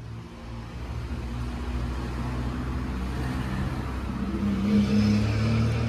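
A motor vehicle's engine rumbling past on the street, growing louder and loudest about five seconds in.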